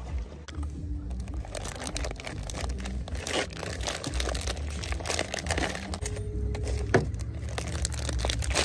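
Clear plastic vacuum-seal packaging on salmon fillets crinkling and crackling as it is pulled and torn open by hand.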